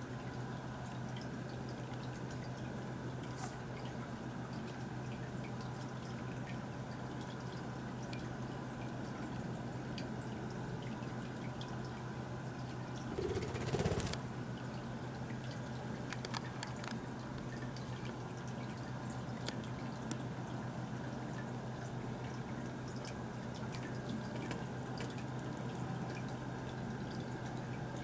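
Steady faint dripping and trickling water over a low hum. About halfway through comes one short, louder puff of noise.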